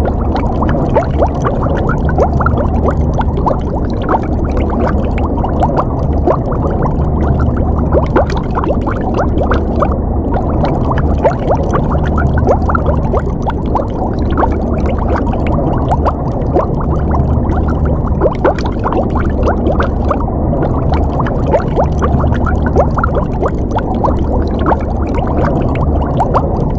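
Underwater water ambience: continuous bubbling and gurgling, full of quick blips that rise in pitch, over a steady low rumble.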